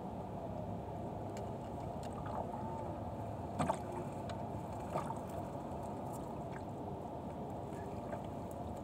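A fishing net being hauled into a small wooden boat, with water splashing off the net over a steady low rumble of background noise. There are a few short knocks against the boat, two together about three and a half seconds in and one more a second later.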